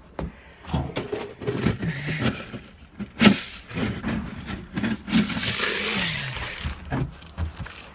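Scattered knocks and scrapes of wood and other objects being handled in a small room, with one sharp bang about three seconds in and a stretch of rustling, scraping noise a couple of seconds later.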